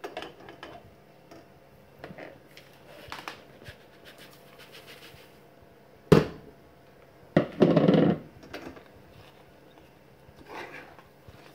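A seed-and-peanut mix going into a saucepan of sticky caramel: quiet scrapes of a plastic spatula against the pot, a sharp knock about six seconds in, then a brief rustling pour or scrape a second or so later.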